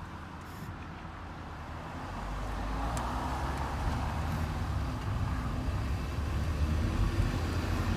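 Car engine and tyre noise heard from inside the cabin: a steady low rumble that grows louder about two seconds in as the car gathers speed.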